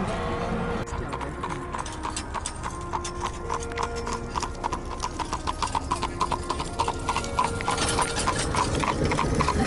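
Shod hooves of a horse pulling an Amish buggy clip-clopping on the asphalt road at a trot. The steady beat grows louder as the buggy draws near and passes, and many of the hoof strikes carry a short metallic ring from the steel shoes.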